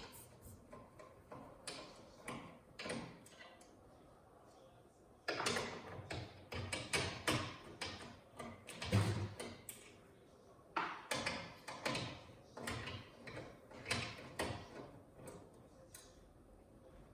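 Bursts of clicks and clatter from a screwdriver and the TV's metal and plastic parts being handled as screws are taken out, with quieter stretches between.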